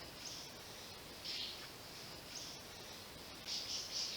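Faint, high-pitched bird calls: single short notes early on and around a second in, then a quick run of several notes near the end, over a steady background hiss.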